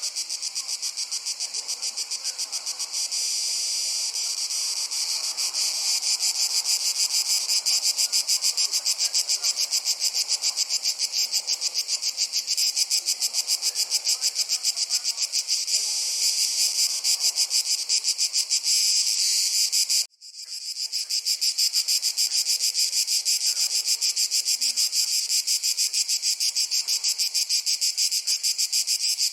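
A dense, continuous chorus of crickets chirping in rapid, even pulses. About 20 seconds in it cuts out for a moment and fades back in.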